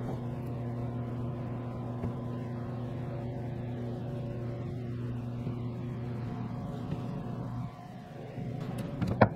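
A steady, low machine hum that cuts out briefly near the end, then a single sharp knock just before the end, fitting a board being set down on the clamps.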